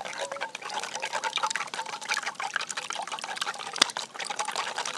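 Eggs being beaten with wooden chopsticks in a stainless steel bowl: rapid ticking of the chopsticks against the metal with wet sloshing of the egg, and one sharper knock nearly four seconds in.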